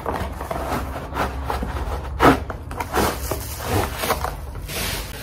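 Rustling and scraping of packaging as a hair straightener in a plastic protective sleeve is slid out of its cardboard box, with sharper scrapes about two and three seconds in.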